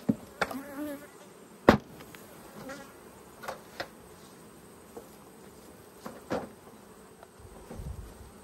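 Honey bees buzzing around an opened hive, with single bees flying close past now and then in a wavering buzz. Several knocks and clicks from the hive's woodwork and fittings being handled break through, the loudest about two seconds in.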